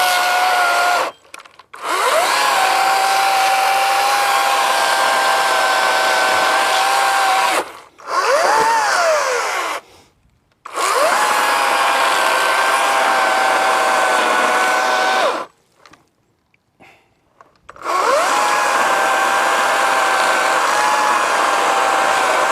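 Atlas cordless brushless electric chainsaw running in repeated bursts of a few seconds, a steady high motor-and-chain whine that stops and starts again about five times. About eight seconds in, the pitch rises and then sags away as the motor slows, its battery at the end of its charge.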